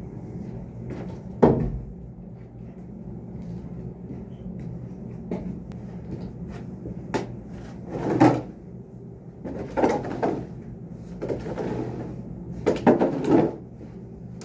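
Loud irregular knocks and clanks, the loudest about a second and a half in and a cluster near the end, over a steady low machine hum.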